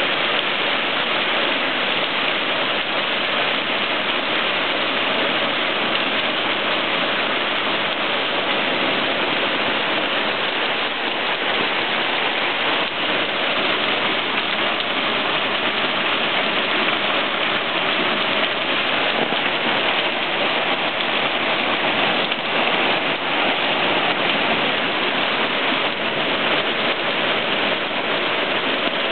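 Torrential thunderstorm downpour, a cloudburst of about 60 mm in an hour, pouring onto pavement and a yard: a dense, steady hiss of rain that never lets up.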